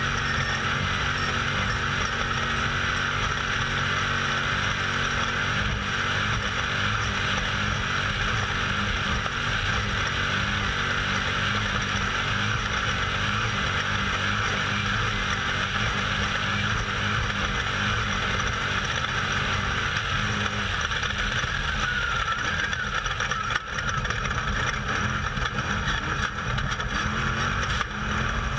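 Off-road race vehicle's engine running hard at speed, heard from onboard, a steady drone with a brief dip about 23 seconds in.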